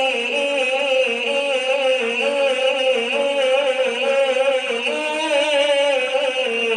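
A male voice singing a naat a cappella, drawing out a long wordless note that wavers and bends in pitch without a break.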